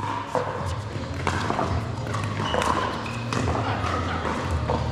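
Pickleball paddles striking a plastic pickleball during a rally, a string of sharp pops a second or so apart.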